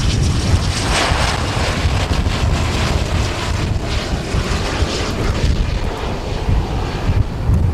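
Business jet's engines running as it passes, a hissing swell about a second in and again around four to five seconds, easing near the end, under heavy wind rumble on the microphone.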